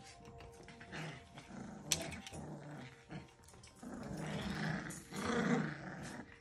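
Several young Labradoodle puppies, about four and a half weeks old, play-growling as they wrestle and mouth at each other and at hanging toys. The growling is louder in the second half, with a sharp click about two seconds in.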